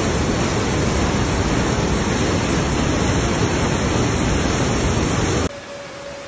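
Rushing of a flooded river that has burst its banks: a loud, steady wash of churning water. It cuts off sharply about five and a half seconds in and gives way to a much quieter steady hiss.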